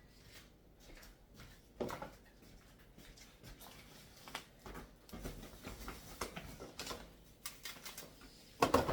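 Scattered clicks, knocks and light rustles of kitchen items and groceries being handled and put away, with a louder clatter near the end.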